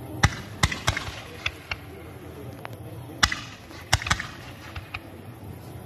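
Fireworks going off: about ten sharp, irregularly spaced bangs and cracks as comets shoot up from the launch site.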